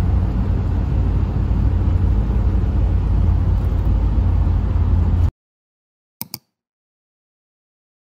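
Low rumble of a bus engine and road noise heard inside the passenger cabin. It cuts off abruptly about five seconds in, and two brief clicks follow a second later.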